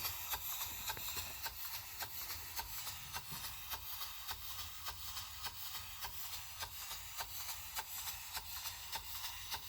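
Small horizontal model steam engine running on low-pressure air: a quiet, even ticking of its exhaust beats and moving parts, about three to four a second.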